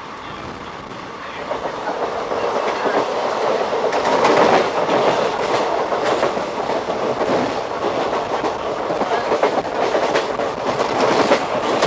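Passenger train coach running at speed, its wheels clattering over the rail joints with a steady rushing noise underneath. It gets louder about one and a half seconds in.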